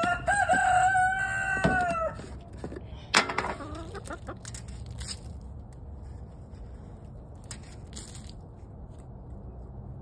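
Rooster crowing once, a drawn-out call of about two seconds that drops at the end, followed about three seconds in by a single sharp knock.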